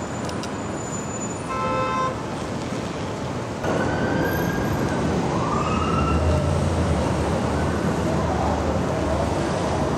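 City street traffic noise with a short horn honk about a second and a half in. After a cut, a siren wails faintly, rising and falling, over a low idling engine.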